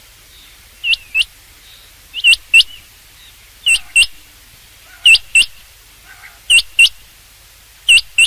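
Rain quail calling: a sharp, high double note, repeated six times at even intervals of about a second and a half.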